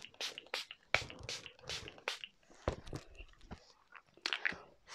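Quick rubbing and patting strokes of makeup base being worked onto the face, heard close on a clip-on microphone. About four strokes a second for the first two seconds, then a few scattered ones near the end.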